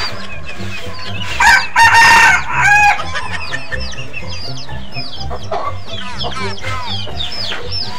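Chickens: a rooster crows loudly in three parts, starting about one and a half seconds in, over the constant high, falling peeps of chicks.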